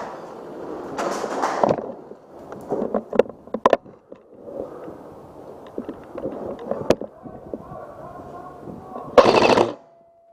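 Airsoft guns firing: a few sharp single cracks and two short rapid bursts, one about a second in and one near the end.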